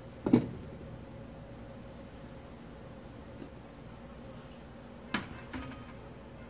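Kitchen clatter: a sharp clank just after the start, then about five seconds later another clank and a softer knock with a brief ring as a filled ceramic soup bowl is set down on a metal sheet pan.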